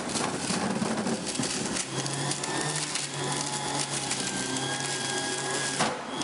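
Electric centrifugal juicer running steadily as carrots are pushed down its feed chute, a constant motor hum under a dense crackle of carrot being shredded.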